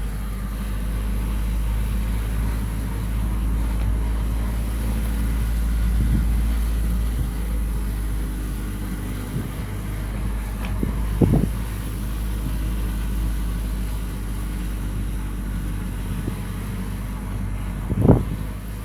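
Car driving, heard from inside the cabin: a steady engine and road rumble, with two brief thumps, one about eleven seconds in and a louder one near the end.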